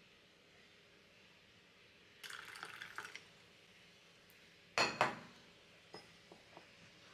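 Coffee poured from a glass carafe into a ceramic mug, a brief rush of liquid about two seconds in. Then two sharp knocks as the glass carafe is set down on the counter, followed by a few light taps.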